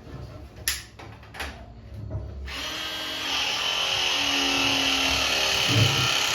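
Power drill running steadily for about four seconds, starting after a couple of short knocks and cutting off near the end.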